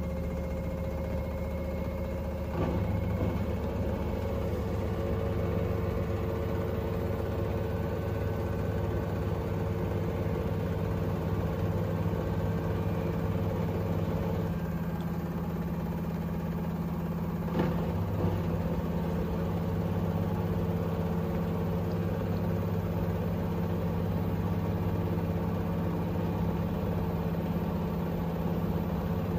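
LG 7 kg front-loading washing machine on an interim spin with a slightly unbalanced load: a steady motor and drum hum. Two brief knocks come through, one a few seconds in and one just past halfway.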